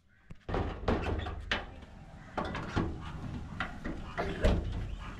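A run of about six irregular knocks and bangs, the loudest near the end, over a low rumble.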